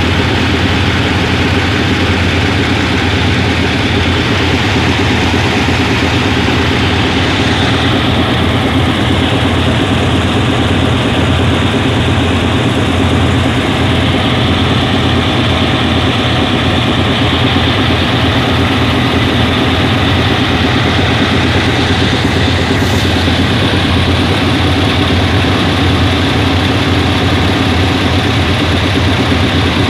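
GE GEK-class diesel-electric locomotive No. 4037 idling, a steady, unchanging engine drone heard up close beside its engine-room grilles.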